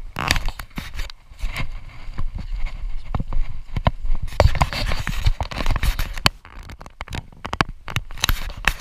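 Footsteps crunching and swishing through tall dry grass and weeds, with irregular sharp clicks and knocks from the handheld camera being jostled.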